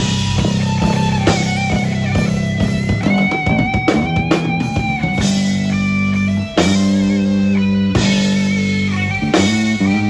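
Rock music from a live band: guitar over bass and a drum kit, playing steadily.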